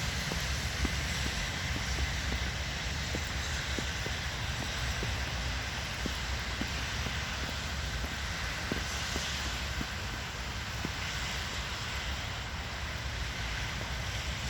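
Blizzard wind buffeting the microphone with a steady low rumble and hiss, and faint scattered ticks through it.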